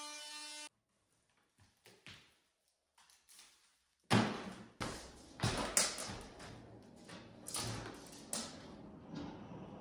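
DeWalt corded oscillating multi-tool running with a steady pitched buzz, which cuts off suddenly within the first second. After a quiet stretch with a few faint clicks, a run of knocks and handling noises starts about four seconds in, the loudest a sharp knock at its start.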